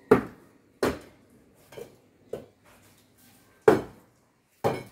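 Hard objects knocking or clattering, about six separate sharp strikes at uneven intervals, each dying away quickly.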